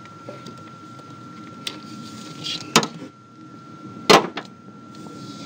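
Two sharp clicks about a second and a half apart, from a socket and extension being worked by hand on the oil pressure sending unit of a Jeep 4.0L inline-six. A faint steady high tone runs underneath.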